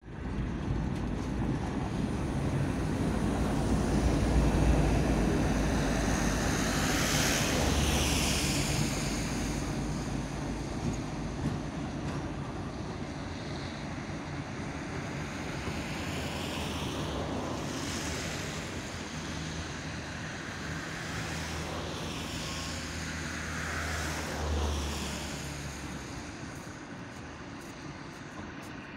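ChME3 diesel shunting locomotive's six-cylinder engine running steadily under load as it pushes wagons up to the hump, with high screeching from wagon retarders rising and fading three times.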